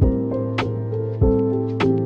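Background music: a keyboard-led pop track with held notes over a bass line and a steady beat.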